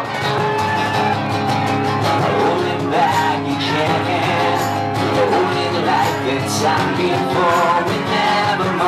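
Live acoustic band playing: strummed acoustic guitars with a singing voice over them.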